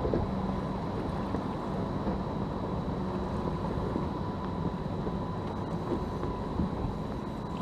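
Steady rush of wind on the microphone and water noise on the front deck of a bass boat, with a faint steady high tone underneath and a low hum that fades in and out.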